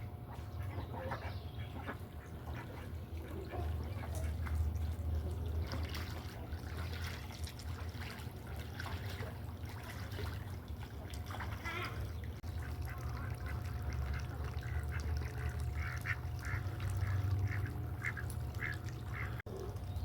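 Farmyard fowl calling in short repeated calls, coming thickest in a quick series near the end, over a steady low rumble.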